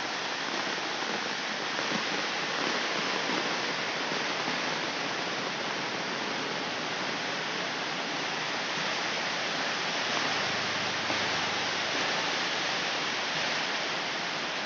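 Heavy rain falling steadily on puddled ground, a continuous even hiss.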